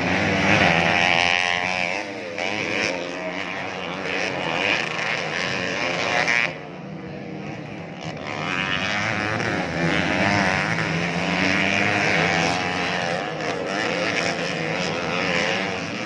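Several motocross bikes' engines revving up and down as they race over the dirt track, the pitch rising and falling constantly. The sound drops briefly about six and a half seconds in, then the engines pick up again.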